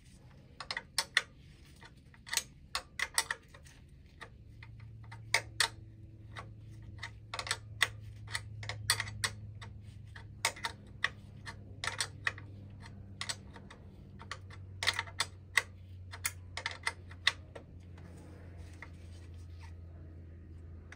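A wrench working the brass oil line fitting on an oil burner, making irregular sharp metal clicks and taps throughout as the fitting is tightened. A low steady hum comes in about four seconds in.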